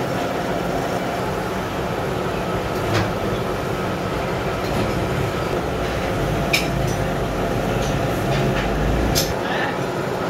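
Gear hobbing machine running, its hob cutting helical teeth into a gear blank: a steady mechanical hum with a few sharp clicks and a heavier low rumble in the second half.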